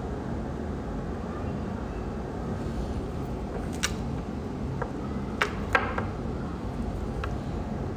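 Steady low background rumble with a few light clicks and taps around the middle, two of them close together, from handling the gel polish bottle and brush at the nails.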